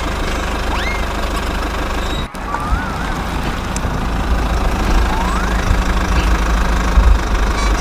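Small engine idling with a steady, knocking rumble, broken by a brief dropout a little over two seconds in. A few faint rising whistles sound over it.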